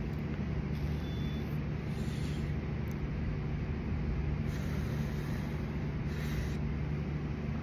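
Steady low mechanical hum holding several fixed low pitches, like a motor running nearby. Over it come soft breathy hisses of a person drawing on a joint and breathing out smoke, the clearest about six seconds in.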